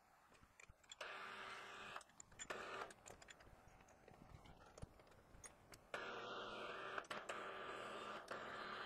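Milling machine at work: bursts of steady hiss that start and stop abruptly, one about a second long near the start, a short one soon after, and a longer one of about three and a half seconds near the end, with a few faint clicks between.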